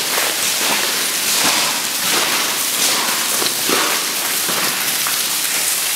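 Steady, rain-like hiss of water running and dripping inside a disused railway tunnel.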